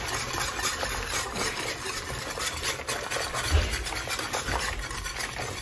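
A whisk stirring chili in a slow cooker's pot: a steady, rapid scraping swish, with a dull bump about three and a half seconds in.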